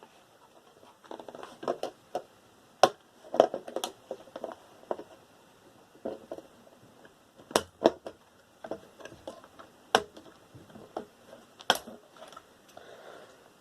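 Irregular clicks, knocks and light scraping of metal and plastic parts being handled while a desktop tower computer is taken apart, with sharp knocks about 3, 8, 10 and 12 seconds in.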